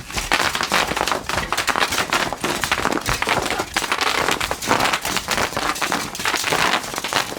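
Bubble wrap popping in a dense, continuous crackle, many cells bursting at once as a body is pressed and rolled onto it.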